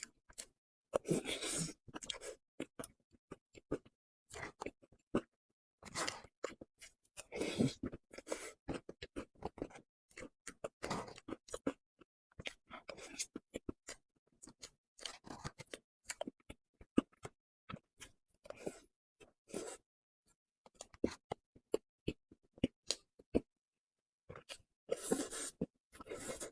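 Close-miked chewing and wet mouth clicks from eating soft cream cakes and pastries, coming in irregular bursts about a second long with short pauses between them.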